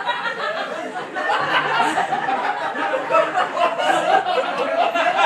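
Audience laughing, with several voices overlapping and no single clear speaker.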